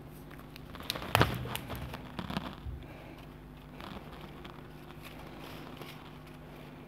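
Black electrical tape pulled off its roll with a crackling rip, loudest just over a second in, then quieter rustling as the taped wires are handled.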